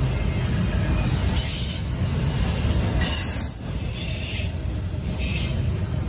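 Double-stack container freight train rolling past close by: a steady low rumble of steel wheels on the rails, with short bursts of high hiss about once a second.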